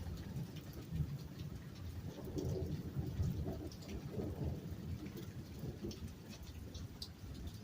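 Rain falling under a low, continuous rumble of thunder, with a dove cooing a few times from about two seconds in.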